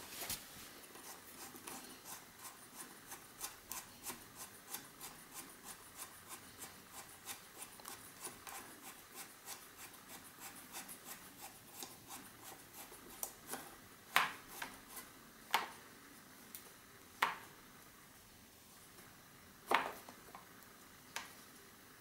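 Shimano Dura-Ace crank's preload cap being screwed in by hand with a Park Tool cap tool: a run of light clicks and scrapes, about three a second, giving way to a few louder, sharper clicks in the second half as it is brought finger tight.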